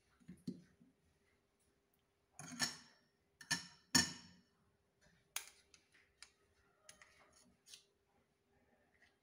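A metal spoon scraping and clinking against a plastic measuring cup and a glass bowl as powder is scooped and dropped onto chicken. Three louder scrapes come about two and a half to four seconds in, followed by scattered light clicks.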